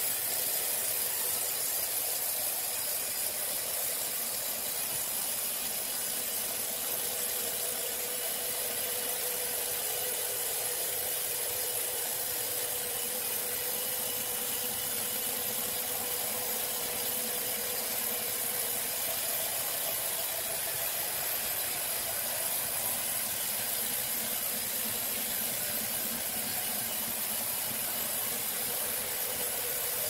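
Large band sawmill running with a steady high hiss and a constant hum underneath, unchanging throughout.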